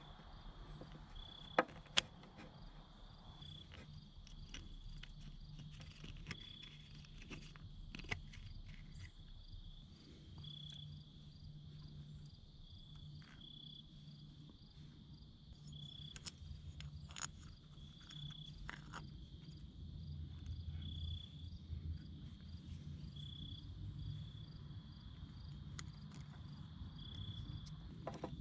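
Insects trilling steadily, swelling into a louder pulse every two to three seconds, with scattered light clicks and taps over a faint low hum.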